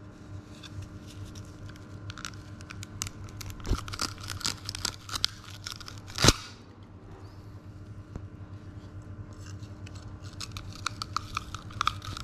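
Tangled nylon monofilament fishing line being handled and cut: scattered crackling, rustling and small clicks, with one sharp, loud click about six seconds in.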